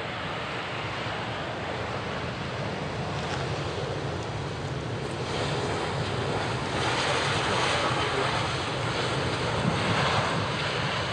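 Jet engines of an Airbus A321 with sharklets running as the airliner rolls along the runway, a steady rushing roar that grows louder about six seconds in.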